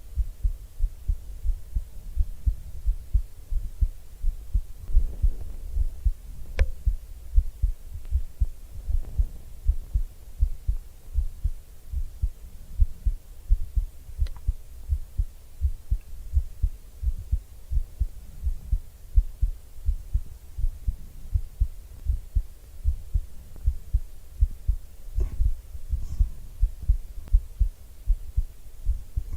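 A person's heartbeat heard close up: soft low thumps repeating in a steady rhythm. A single light click about six and a half seconds in.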